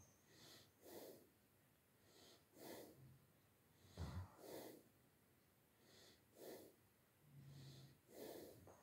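Near silence broken by faint, soft breaths close to the microphone, about one every second or so.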